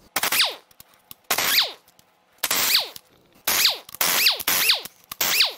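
Impact wrench loosening main bearing cap bolts: about seven short bursts of hammering, each ending in a falling whine.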